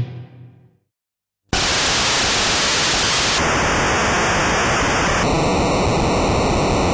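Background music fades out, a moment of total silence follows, then loud steady static-like white noise sets in, its tone shifting in steps every couple of seconds: an electronic noise effect laid over the footage.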